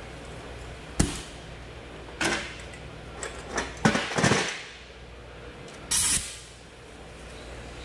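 Metal tools and parts being handled during brake work: a series of short knocks and clatters, then a brief, louder burst of noise about six seconds in.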